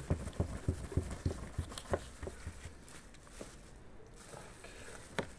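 Raw lamb legs being handled in a plastic tub and cut free of cling film with a knife: a run of small taps and plastic rustles, busiest over the first two seconds, then sparser.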